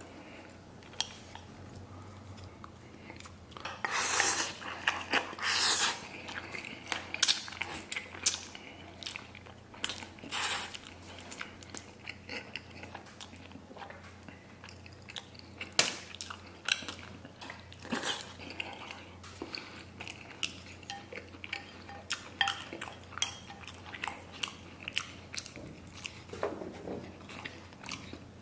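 Close-up eating of braised noodles with pork belly: wet chewing, lip smacks and slurps, the loudest stretch coming about four to six seconds in. Wooden chopsticks click irregularly against a ceramic bowl throughout.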